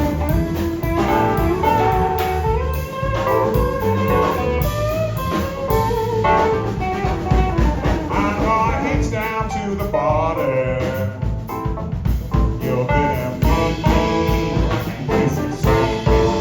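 Blues band playing live through an instrumental break: a lead guitar plays bending, sliding melodic lines over the rhythm section.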